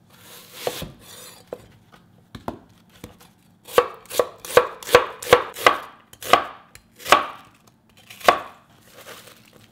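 Chef's knife slicing a peeled onion on a wooden cutting board: a few soft cuts, then a quick run of sharp knocks of the blade on the board, about two or three a second, slowing to a few single knocks.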